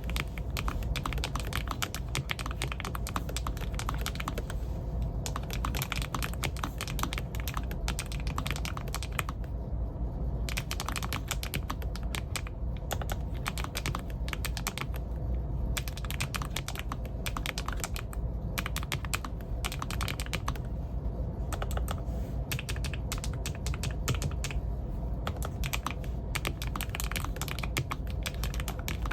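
Typing on a LOFREE Flow Lite100 low-profile mechanical keyboard with Specter switches: rapid keystrokes in runs, broken by short pauses every few seconds.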